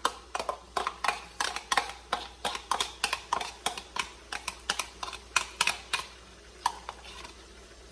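A kitchen utensil clicking and knocking quickly and irregularly, about three or four strokes a second, thinning out after about six seconds, as tomatoes are added to the curry.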